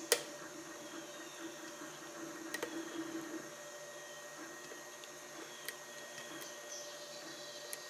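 A few sharp, light clicks of a steel hook pick working the pins of a pin-tumbler lock, spaced a couple of seconds apart. Under them, a 3D printer runs with a steady, quiet whir.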